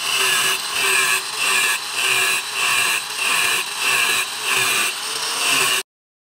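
Angle grinder with a thin green disc cutting across a steel file clamped in a vise, in an even rhythm of just under two passes a second. It cuts off suddenly near the end.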